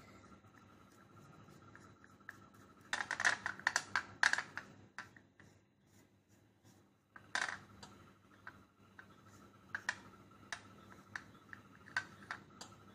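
Light clicks and taps as a ribbed seashell is brushed with paint and shifted on a wooden tabletop, with a quick cluster of clicks about three seconds in and another short burst about seven seconds in.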